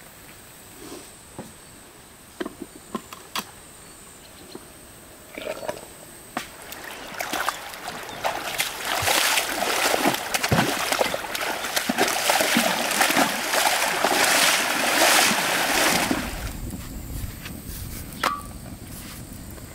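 Water splashing and sloshing, building from about seven seconds in and stopping abruptly about nine seconds later, after a few light clicks and knocks.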